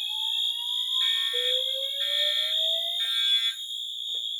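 Fire alarm system in alarm between voice evacuation messages: slow rising whoop tones sweep upward while horns sound the temporal-three code, three short blasts about a second apart, over a continuous high-pitched tone.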